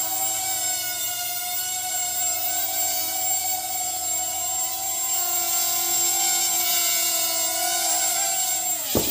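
Hubsan X4 micro quadcopter's four small coreless motors and propellers whining steadily in flight, the pitch wavering slightly as it holds a hover. Near the end there is a knock as it touches down, and the whine begins to fall as the motors spin down.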